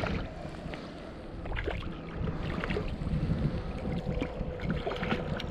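Wind buffeting the microphone, with scattered small splashes and clicks as a hooked trout thrashes at the surface close to the bank.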